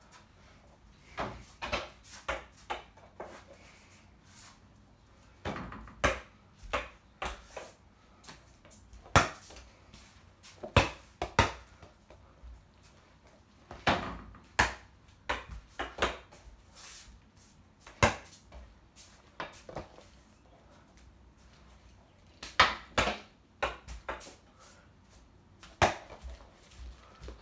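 A small ball hitting a mini over-the-door basketball hoop and the door behind it, and bouncing on the floor: irregular clusters of sharp knocks and thumps with short pauses between them.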